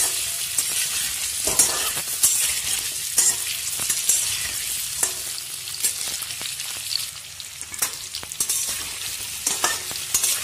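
Boiled baby potatoes sizzling in hot mustard oil in a steel kadai as they are lightly fried. A spatula scrapes and clicks against the pan every second or so as the potatoes are turned.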